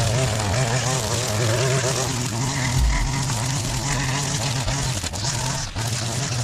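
Small petrol engine of yard power equipment running steadily, its pitch wavering over the first two seconds.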